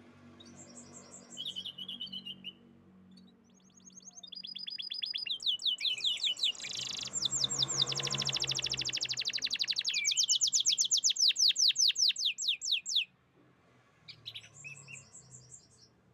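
Domestic canary singing: a short phrase, then a long song of rapid trills, each phrase a quick run of one repeated high note, growing louder and stopping abruptly about thirteen seconds in. A brief phrase follows near the end.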